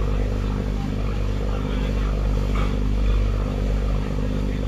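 Boat engine running steadily at speed, a constant low drone, with water rushing past the hull.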